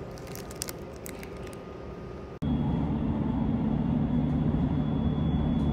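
Crinkly clicks of a clear plastic bag of rusk biscuits being handled. About two seconds in it cuts to the steady low rumble of a moving vehicle heard from inside its cabin, with a faint thin steady whine above it.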